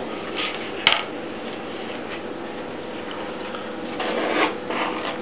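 A knife blade scraping diced tail fat off a plastic cutting board into a plastic tub, a soft scraping slide of fat about four seconds in. A single sharp click comes about a second in, over a faint steady hum.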